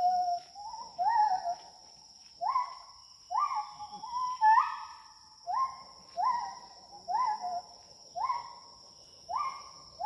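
A forest animal calling in a series of whistled notes, roughly one a second with short pauses, each note sliding up sharply and then holding near one pitch. A steady high whine runs underneath.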